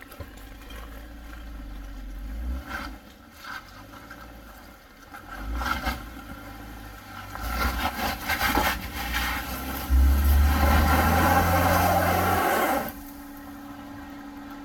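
Off-road vehicle's engine working over a rock ledge. It runs unevenly at first, then revs hard for about three seconds under loud tyre-on-rock noise, and drops back to a steady idle near the end.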